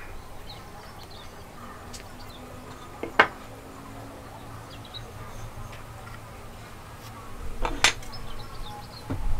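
Hardwood joint pieces knocking against each other as they are handled and fitted together: a sharp wooden clack about three seconds in, and another near eight seconds with a few softer knocks around it. Faint chirping and a low hum sit underneath.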